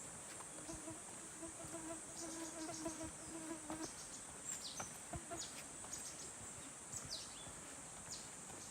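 A flying insect buzzing close by for about three seconds, over a steady high-pitched insect chorus. Short high falling chirps follow in the second half.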